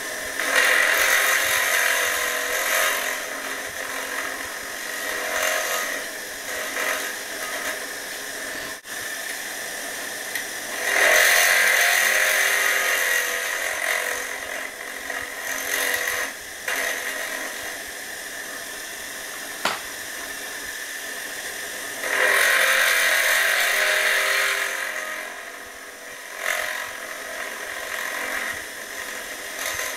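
Giraud powered case trimmer's electric motor running steadily while its carbide cutter trims and chamfers rifle brass case necks. There is a louder cutting sound lasting two to three seconds each time a case is pushed down onto the cutter: three times, about ten seconds apart.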